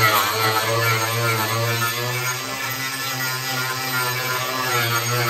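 Ryobi angle grinder fitted with an Arbortech carving wheel, grinding into the edge of a walnut slab to shape a natural edge. A steady motor hum under a rasping cutting noise, its pitch wavering as the wheel bites into the wood.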